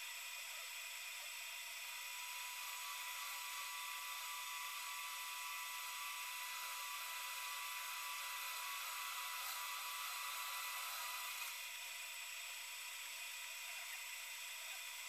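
Metal lathe running as it takes a facing cut across the end of a steel workpiece, a steady whine with the cutting hiss on top. The cut is a little louder through the middle and eases slightly about eleven seconds in.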